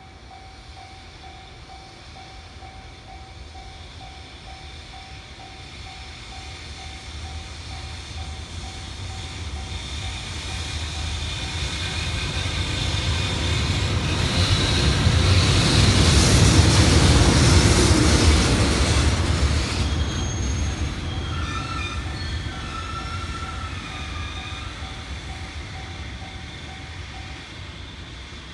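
Freight train passing a level crossing: its rumble builds for about fifteen seconds, peaks and fades. A level-crossing warning bell rings steadily throughout, and a few high whining tones sound as the train draws away.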